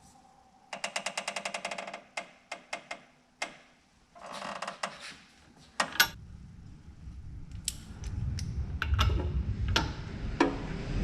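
Ratchet wrench clicking in a quick, even run for about a second as the front pinion nut is tightened further toward its 6–8 inch-pound bearing preload, followed by scattered sharp metallic clicks and knocks of hand tools. A low rumble comes in about halfway through.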